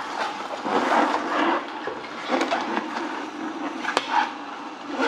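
Kuvings EVO 820 slow juicer running, its auger crushing spinach and apple with an irregular grinding noise that swells and fades over a faint steady motor hum. A few sharp clicks come in, with a knife cutting on a wooden board near the start.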